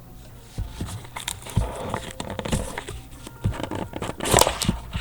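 Plastic wrapping on a box of trading cards crinkling and tearing as it is opened by hand, in irregular crackly bursts with small clicks and taps of handling; the loudest crinkle comes near the end.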